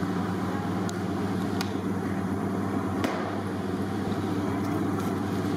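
A steady low mechanical hum with a few light metal clinks from cooking utensils.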